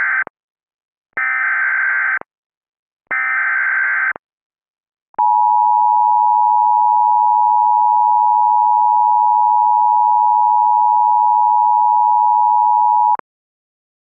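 Emergency Alert System SAME header tones for a Severe Thunderstorm Warning: the tail of one digital data burst, then two more one-second bursts about a second apart. About five seconds in comes the EAS two-tone attention signal (853 and 960 Hz), held steady for about eight seconds and cut off abruptly.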